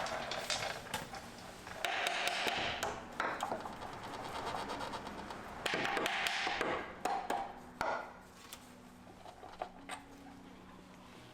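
Car repair work: clanks and knocks of tools and metal parts, with two louder bursts of tool noise, each over a second long, about two and six seconds in.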